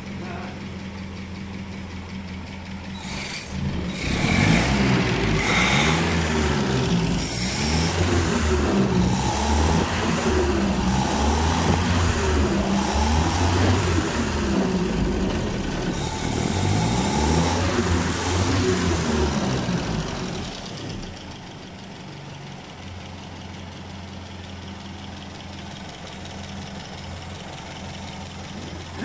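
Citroën ID19 four-cylinder engine idling, then revved up and down repeatedly from about four seconds in, settling back to a steady idle about three-quarters of the way through.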